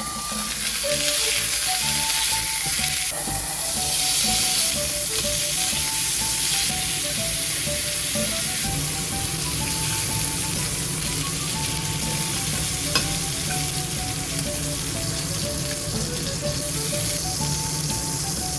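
Food sizzling and frying in a hot pan, a steady crackling hiss throughout, with a single sharp click about 13 seconds in.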